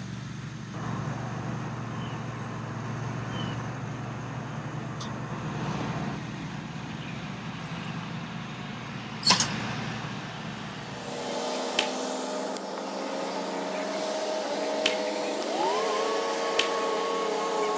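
Six crisp clicks of a wedge striking golf balls on chip shots, spread through a steady engine hum; the loudest strike comes about nine seconds in. After about eleven seconds the hum turns into several steady tones that rise in pitch near the end.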